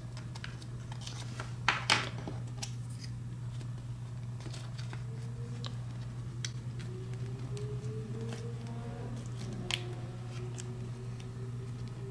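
A thin opening tool prying an iPhone X's glass screen away from its metal frame: scattered small sharp clicks and light scraping as the adhesive gives, the loudest two clicks about two seconds in and another near ten seconds. A steady low hum runs underneath.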